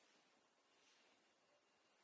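Near silence: faint steady hiss of room tone, with one faint soft rustle about halfway through.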